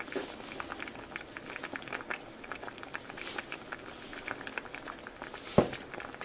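A pot of pinto beans bubbling on the stove: a steady run of small pops and bubbling. One sharp knock sounds about five and a half seconds in.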